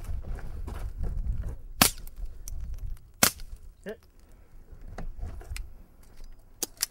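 .22 rimfire pistol shots: two sharp cracks about a second and a half apart, then two quicker, fainter ones near the end.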